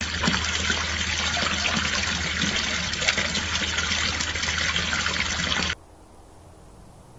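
Water pouring steadily from a garden water fountain's spout and splashing into its basin. It cuts off abruptly near the end, leaving only a faint hiss.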